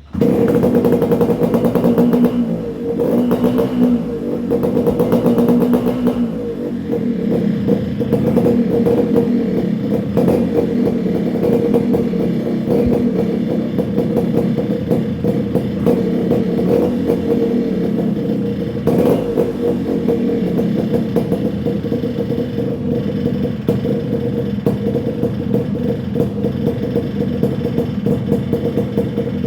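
Two-stroke motorcycle engine running through a homemade expansion chamber exhaust, loud. It is revved up and down over the first six seconds or so, then held at a fairly steady speed.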